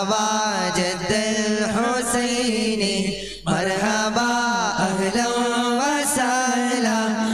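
A devotional song in Malayalam and Arabic, sung in long, ornamented wordless phrases over a steady low held tone. It breaks off briefly about three and a half seconds in, then goes on.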